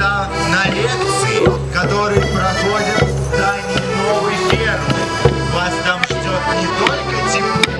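Accordion playing a lively border morris dance tune over sustained bass notes, with regular sharp knocks keeping the beat.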